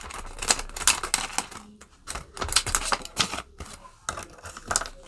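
Hands handling crisp Canadian polymer $20 banknotes and a clear plastic binder pouch: a quick, irregular run of crackles and clicks.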